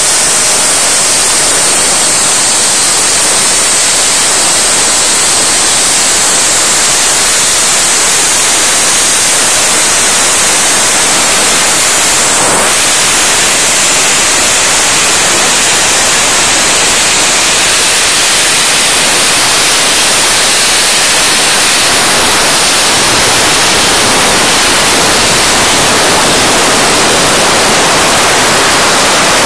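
Soda blaster nozzle hissing loudly and steadily as compressed air and baking-soda media strip paint off a large painted figure; the hiss is high-pitched and unbroken.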